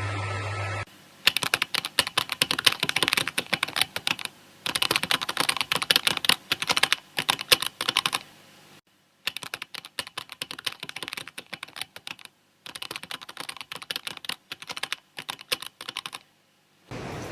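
Rapid typing on a computer keyboard: dense keystrokes in four runs of about three seconds each, with short pauses between.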